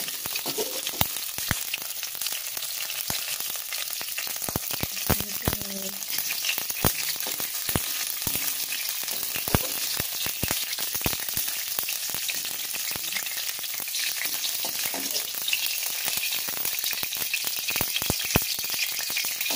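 Hot oil sizzling in a frying pan, with frequent sharp taps and scrapes of a spatula against the pan.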